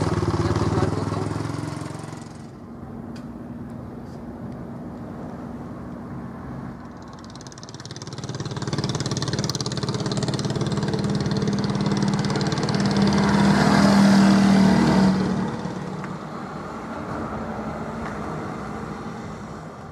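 A motor engine running close by, growing louder to a peak about two-thirds of the way through, then fading away.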